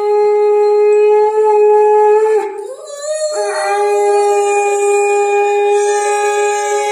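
Conch shell (shankh) blown in a long, steady, horn-like note. It wavers and breaks off about two and a half seconds in, then sounds again in a second long note.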